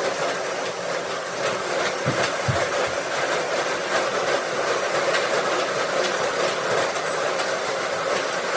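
Straw bale elevator running with a steady clattering rattle, with two low thumps about two seconds in.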